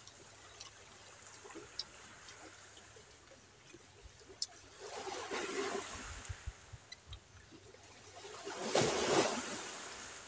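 Small waves washing on a rocky shore, two soft swells of surf a few seconds apart, with faint clicks and smacks of people eating.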